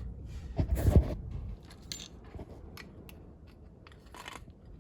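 Metal parts of a car's clutch pedal assembly being handled and worked loose by hand: a knock about a second in, then scattered light metallic clicks.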